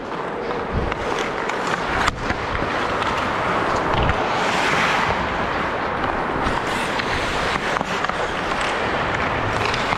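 Ice hockey play: a steady hiss of skates carving the ice, with a few sharp clacks of sticks and puck.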